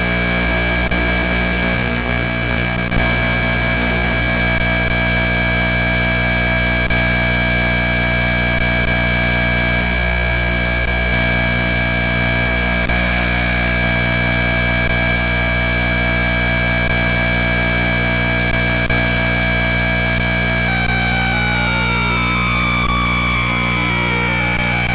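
Electronic noise drone: many steady tones held together over a hiss. In the last few seconds several of the tones begin to slide in pitch, some rising and some falling, so that they cross.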